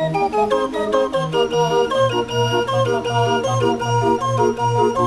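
Barrel organ playing a tune: a pipe melody of held notes over a bass that pulses about three times a second once it comes in, about two seconds in.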